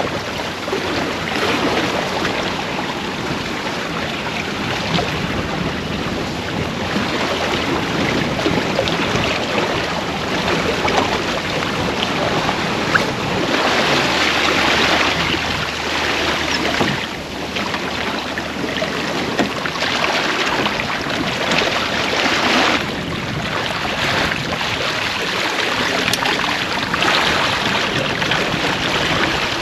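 Water rushing along the hull of a 1978 Allied Seawind II sailboat under sail, with wind, swelling and easing in surges as the boat moves through the waves.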